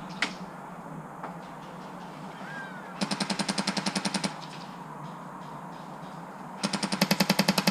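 Two bursts of full-auto airsoft gunfire, each lasting just over a second at roughly ten shots a second, the second burst louder. A single sharp shot sounds just after the start.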